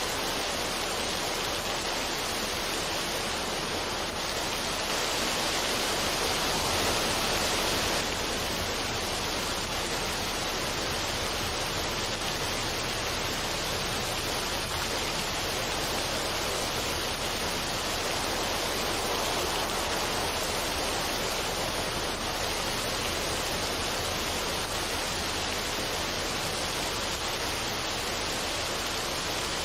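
Waterfall on a mountain stream, water rushing steadily over rocks, swelling slightly for a few seconds about five seconds in.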